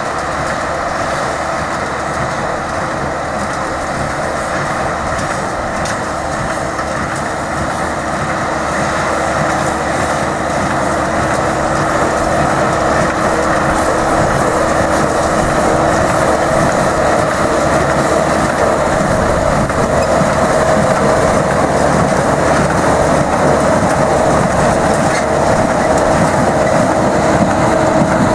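A John Deere tractor running steadily as it pulls a small square baler that is baling hay, the baler and stacker working behind it. The sound grows louder as the outfit draws closer.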